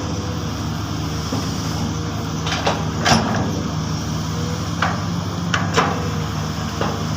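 Komatsu long-reach excavator's diesel engine running steadily as it digs, with a scattering of short clanks and knocks, about seven, the loudest about three seconds in.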